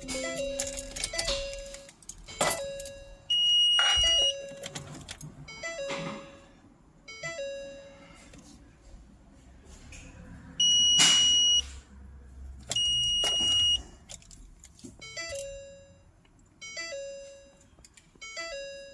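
Vehicle warning chimes sounding with the ignition on during an ABS module self-test: a low two-note chime repeats about once a second, pauses for a few seconds in the middle, and three louder high-pitched beeps of about a second each come in between, with scattered clicks.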